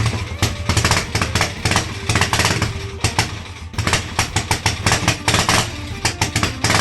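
Triumph Tigress scooter engine running, with a rapid uneven beat whose loudness rises and falls.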